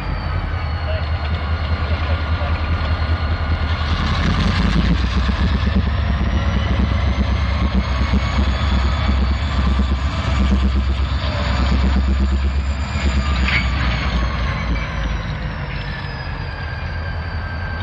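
Two Norfolk Southern diesel locomotives running, pulling covered hopper cars slowly through a rail yard: a steady low engine rumble with a thin high whine that rises and then falls back, and a few sharp knocks along the way.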